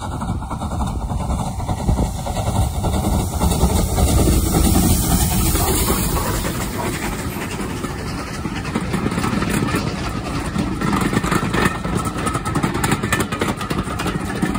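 Steam locomotive 34081 '92 Squadron', a Bulleid Battle of Britain class pacific, working along the line with a steady rush of exhaust and low rumble that swells a few seconds in.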